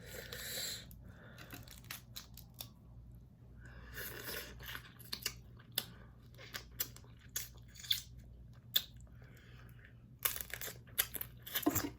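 Snow crab leg shells being cracked and torn apart by hand, with scattered sharp cracks and a few short tearing noises, mixed with close-up chewing.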